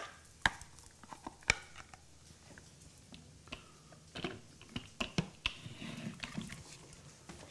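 Scattered light clicks and knocks of a plastic lid being fitted onto a blender jar, with handling noise in between.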